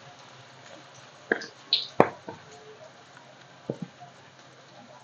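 Vegetable fritters deep-frying in hot oil in a wok, a faint steady sizzle, broken by a few sharp clicks and knocks, three or four between about one and two and a half seconds in and a quick pair near four seconds.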